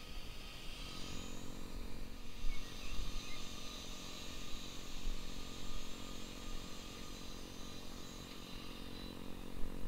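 Blade 130X electric RC helicopter's rotors and motor whirring steadily as it hovers and sets down, the whir fading away near the end as the rotor spins down after landing.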